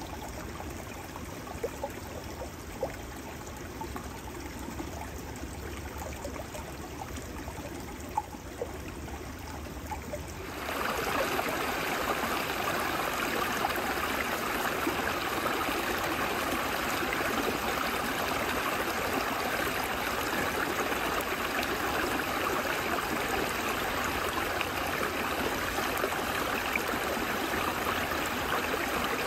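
Small snowmelt stream running between banks of snow and ice, a low, steady flow; about ten seconds in it switches to a louder, higher-pitched rush of water trickling over ice and stones.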